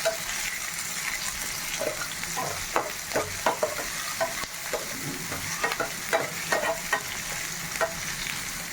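Chopped onion and cumin seeds sizzling in hot oil in a pan, being fried until brown, while a spoon stirs them and scrapes and taps against the pan many times.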